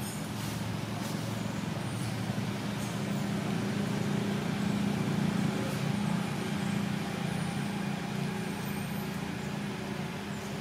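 Steady low drone of a motor vehicle's engine, growing louder toward the middle and easing off near the end.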